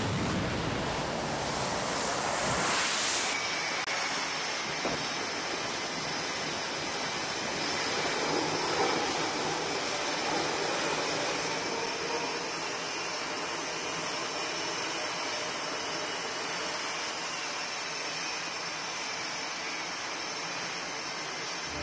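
F/A-18 Super Hornet jet engines running: a steady, hiss-like roar. It is brighter and slightly louder for the first three seconds or so, then settles into a steadier roar.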